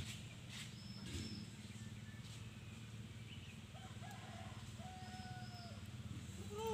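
Chickens calling a few times, with the loudest call near the end, over a steady low engine drone in the background.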